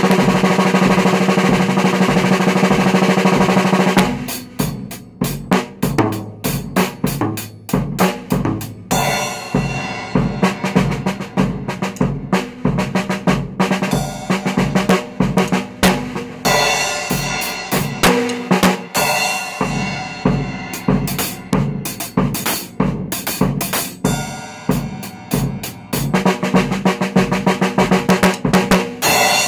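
Acoustic drum kit played solo: a loud dense roll for about the first four seconds, then separate snare and bass drum strokes broken by quick fills, and another dense roll near the end. The cymbal is struck at the start.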